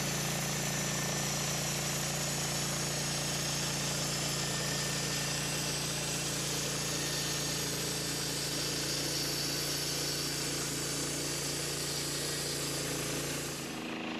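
Norwood portable bandsaw sawmill cutting through a beech log: its gas engine running steadily under load beneath the hiss of the band blade in the wood. Shortly before the end the cutting hiss drops away, leaving the engine running on its own.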